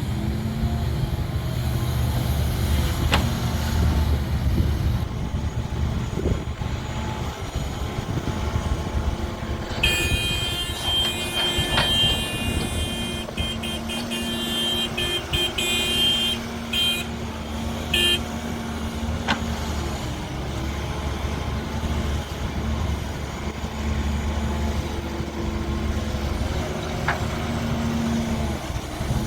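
Heavy diesel engine of a backhoe loader at work, running steadily. About a third of the way in, a high horn-like tone sounds: first held for a few seconds, then in a string of short toots.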